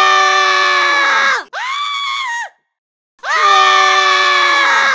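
Voice-acted shouting: a long, loud held yell like a war cry, a shorter quieter call that rises and falls in pitch, then after a short pause another long loud held yell.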